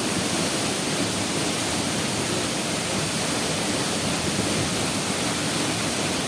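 Fast-flowing mountain water rushing steadily, a constant loud, even rush with no breaks.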